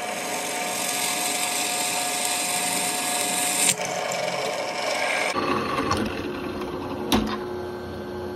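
Benchtop drill press running steadily, its twist bit boring through a wooden knife-handle scale, with a single sharp knock near the end.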